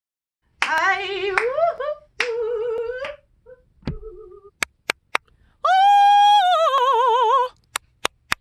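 A woman sings sustained test notes with a wavering vibrato, the longest and loudest about halfway through. Between and after the notes come two quick sets of three hand claps, which stop short with no echo, inside a small vocal booth lined with rockwool and foam panels.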